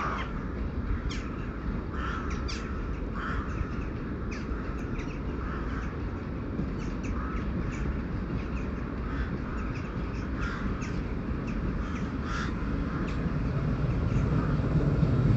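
Crows cawing repeatedly, a short call every second or so, over a steady low rumble that grows louder near the end as a train approaches.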